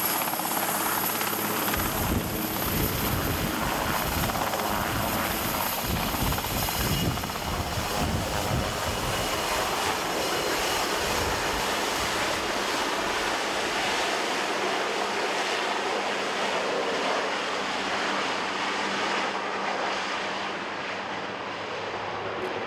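Marine One, a Sikorsky VH-3D Sea King twin-turbine helicopter, lifting off and flying away. A high turbine whine and the heavy beat of the rotor build about two seconds in as it takes off, then slowly fade as it climbs away.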